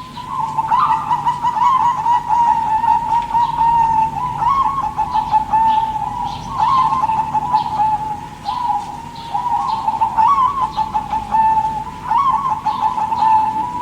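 Zebra dove (perkutut) cooing: a continuous warbling coo, with a new rising phrase starting about every two seconds.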